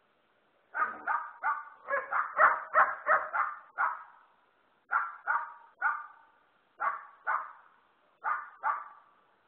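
Dogs barking: a fast run of about a dozen barks, then slower barks in twos and threes.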